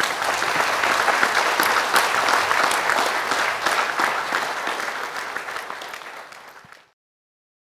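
Audience applauding, a dense patter of many hands clapping that tapers off over a few seconds and then cuts off suddenly near the end.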